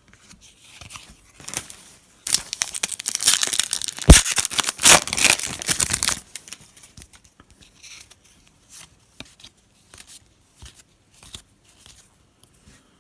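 A 2017 Panini Donruss football hobby pack's foil wrapper being torn open and crinkled for about four seconds, then scattered light ticks and rustles as the cards are handled.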